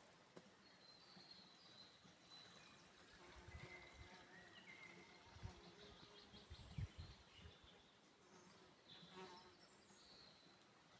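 Quiet outdoor ambience with an insect buzzing, a scattering of short high chirps, and a few soft low thumps around the middle.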